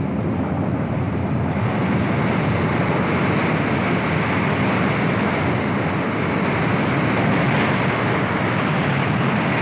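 Large ocean waves breaking, a loud steady rushing noise of surf and spray.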